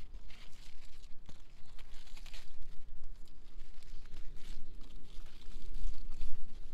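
Large zucchini leaves and stems rustling and crinkling in repeated bursts as hands push through the plants with a knife, over a low, uneven rumble on the microphone.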